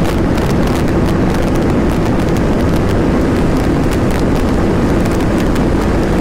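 KTM RC390's single-cylinder engine running steadily near full speed, at about 165 km/h, mixed into heavy, steady wind rush on the helmet or bike-mounted microphone.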